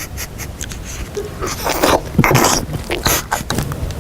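A person eating noisily, with loud chewing, smacking and snorting mouth sounds in short irregular bursts and a few sharp clicks.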